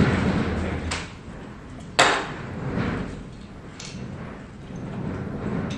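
Handling and movement noise close to the microphone: rustling swells with a click about a second in and one sharp knock about two seconds in.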